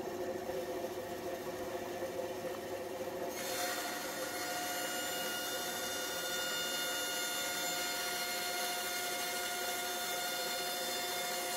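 Bandsaw running with a steady hum. About three and a half seconds in, its blade starts cutting a 45-degree bevel along the edge of a small marine-plywood square, adding a steady hiss of sawing that continues to the end.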